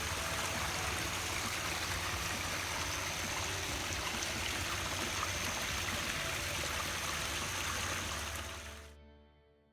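River water running over rocks, a steady rush that fades out about nine seconds in.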